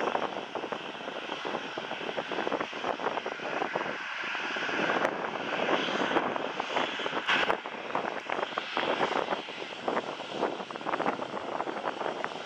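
Boeing 737-700's CFM56-7B turbofan engines running at taxi power as the airliner turns on the runway: a steady jet rush, with a fan whine that rises and grows louder about halfway through as the engines swing toward the listener.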